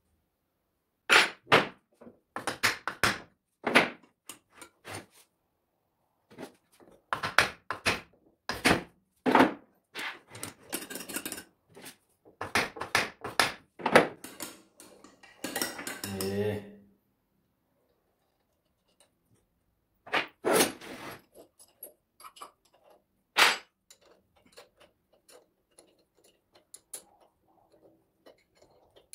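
Steel hand tools clanking and knocking against the cast-iron end cover and bolts of a Multilith 1250 compressor during assembly, as wrenches are picked up, set down and put to the bolts. The clanks come in a dense run for the first two-thirds, then thin to a few scattered taps.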